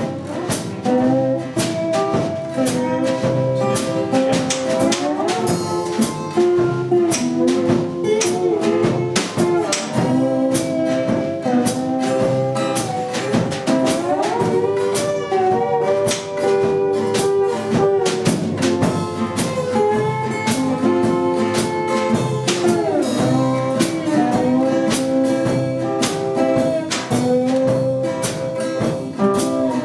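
Small acoustic band playing live: two acoustic guitars, an acoustic bass guitar and a drum kit, with a held melody line that slides between notes.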